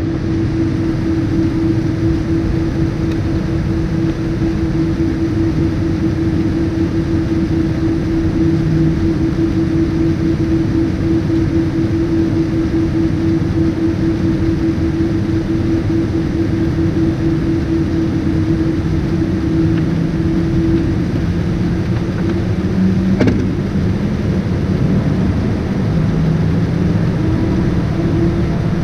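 Boeing 787-9 engines idling with the airliner stopped on the ground, heard inside the cabin at the window: a steady low rumble with a hum over it that fades about 21 seconds in and comes back near the end. A single click about 23 seconds in.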